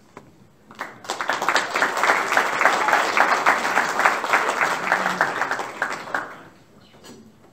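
Banquet audience applauding, starting about a second in and dying away after about five seconds.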